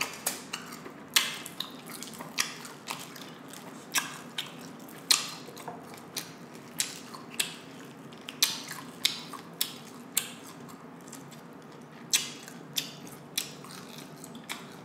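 Close-miked chewing of crispy fried chicken wings: sharp, irregular crunches about twice a second.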